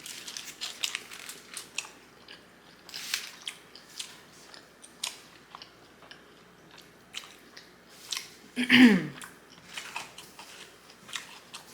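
Close-up mouth sounds of someone biting and chewing a lettuce-wrapped burger: irregular crunching and wet clicks. About two-thirds of the way through there is a brief falling vocal sound from the eater, the loudest moment.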